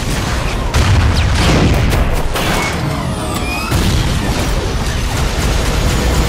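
Film battle sound effects: repeated explosions and crashing impacts with a heavy low rumble and a few brief whizzing, laser-like whistles, laid over the trailer's music.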